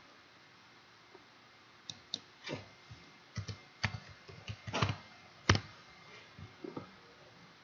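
Computer keyboard being typed on: a scattered run of separate key taps at typing pace, the sharpest about five and a half seconds in.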